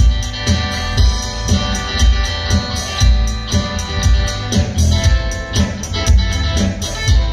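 Live instrumental band music: electric guitar, bass guitar, keyboard and acoustic guitar, with a cajón keeping a steady beat.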